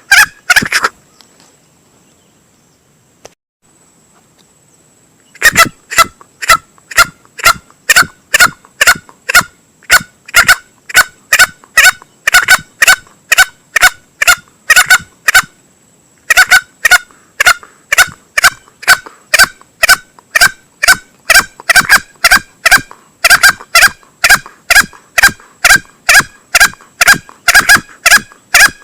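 Recorded lure call of a male green junglefowl: short, loud calls repeated rapidly, about two a second. The calls start about five seconds in after a pause and stop briefly about halfway through.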